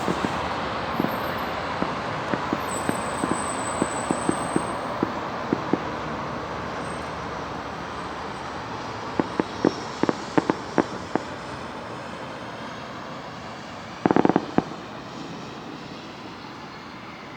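Fireworks salute going off over a steady hum of city traffic: scattered single bangs through the first several seconds, a quick cluster of bangs around the middle, and a rapid crackling run a few seconds before the end.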